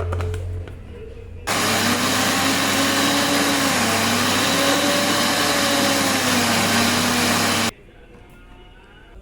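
A high-speed electric motor appliance running loudly for about six seconds, switched on and off abruptly, its motor pitch dipping and rising as the load changes.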